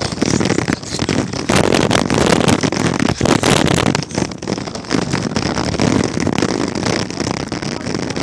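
Kick scooter's small wheels rolling fast over rough, cracked pavement: a loud, continuous rattling crackle with many sharp clicks, heaviest between about one and a half and four seconds in.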